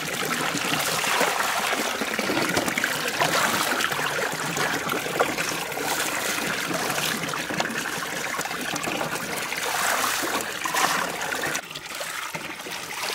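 Water splashing and trickling in a large basin as several hands wash carrots, scooping and pouring water over them. It drops away near the end.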